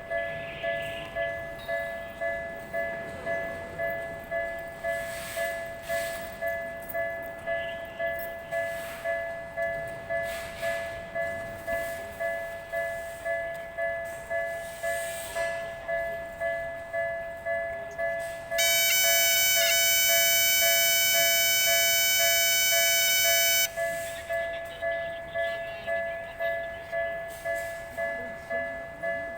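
Japanese railway level-crossing alarm ringing continuously: a pulsing two-tone electronic bell at about three strokes every two seconds. About two-thirds of the way through, a louder steady high-pitched tone sounds over it for about five seconds, then stops abruptly.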